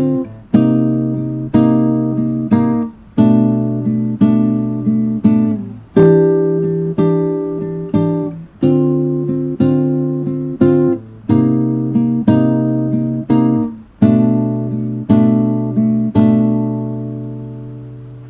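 Acoustic guitar music: chords strummed at an unhurried pace, each left to ring and die away, the last one fading out near the end.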